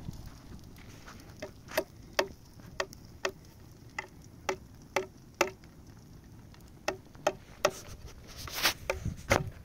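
Hand-held stone knocking repeatedly on the ground or a board: short, sharp knocks at uneven intervals, roughly two a second, with a louder scuffing cluster near the end.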